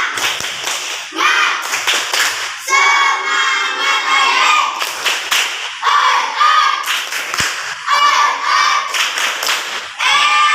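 A class of young children singing together, with some hand clapping.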